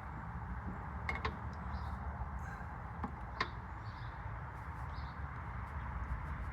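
A few faint clicks and taps as a motorcycle starter relay is worked onto its plug-in connector prongs with a screwdriver, over a low steady hum.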